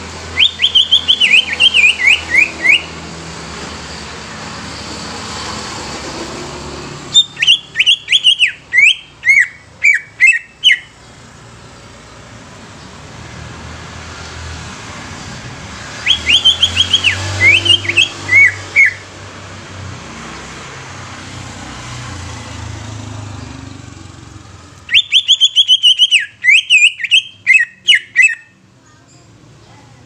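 Cucak ijo (greater green leafbird) singing in four bursts of quick, loud whistled notes, each note falling in pitch, over a steady low background rumble.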